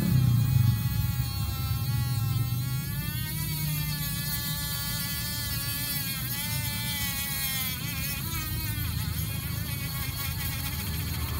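Small battery-powered DC motor spinning a carburettor float needle in its seat, lapping it with incense-ash-and-petrol paste to cure a fuel overflow leak. Its whine wavers up and down in pitch as the load on the needle changes.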